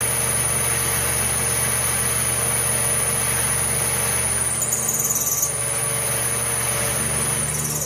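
Benchtop mill-drill running with a steady high whine over a low motor hum while milling a metal plate. The sound changes briefly about halfway through, then cuts off suddenly at the end.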